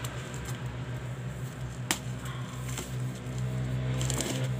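Plastic bubble wrap crinkling and rustling as it is torn and pulled off a box, with a single sharp click about two seconds in and crackling bursts near the end, over a steady low hum.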